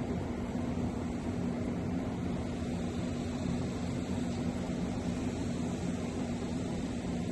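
Steady low droning noise with a constant faint hum, unchanging throughout.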